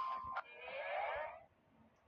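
Music with a steady high tone cuts off, then one small sneeze, a noisy wavering burst under a second long.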